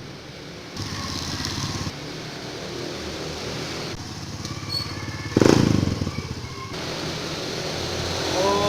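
Bus engines running as buses drive past, the sound jumping abruptly several times, with one sudden loud blast about five and a half seconds in.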